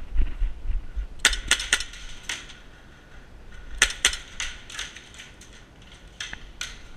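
Airsoft guns firing: a dozen or so sharp snapping shots at irregular intervals, a quick run of four about a second in and another cluster around the middle, with low rumble of handling or wind in the first second.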